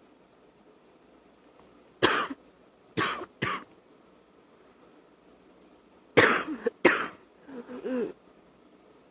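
A woman's wet cough: three sharp coughs about two seconds in, then two more a few seconds later, followed by a short sound of the voice.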